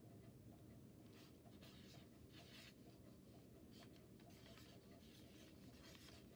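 Near silence: room tone with a string of faint, short scratchy rustles, about eight of them at irregular intervals.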